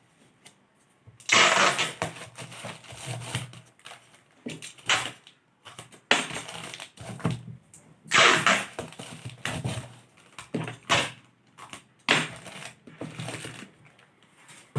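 Packaging being handled and unwrapped: a series of crinkling, rustling bursts, about one every second or two.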